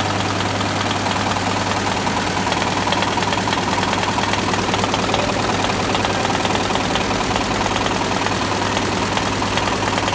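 Barudan computerized embroidery machine stitching at speed: a steady, rapid, even needle clatter over a constant low hum.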